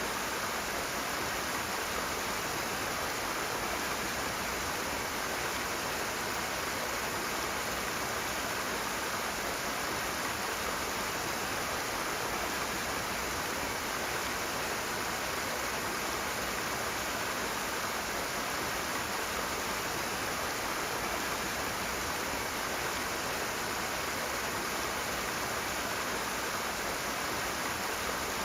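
Rushing water: a steady, even roar of fast-flowing water with no breaks or changes.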